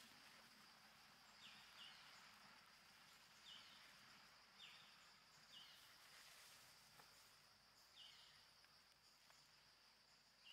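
Faint forest ambience: a steady high insect drone, with short high chirps at irregular intervals.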